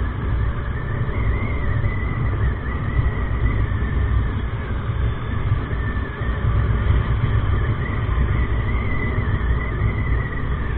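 TVS Apache RTR 160 single-cylinder motorcycle under way at road speed: heavy wind rush on the microphone over the running engine, with a high wavering whine.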